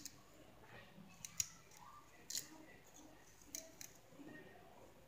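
A handful of faint, sharp clicks and taps from kitchen prep as more cut lemon and ginger pieces are handled and added to the jar.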